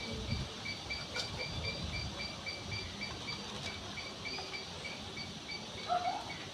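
An insect calling steadily in rapid, even chirps, about five a second, with faint low rumbles of handling in the first couple of seconds.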